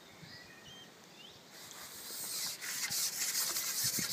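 Rubbing and scraping handling noise close to the microphone, starting faint and building up from about halfway as the camera is moved, with short scraping strokes toward the end. Small birds chirp faintly in the first second.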